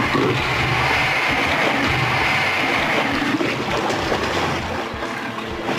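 Heavy splashing and churning of water as crocodiles thrash with a large prey animal.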